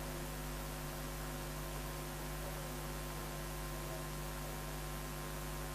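Steady electrical mains hum, a low buzz with several fixed higher tones over a constant hiss, unchanging throughout.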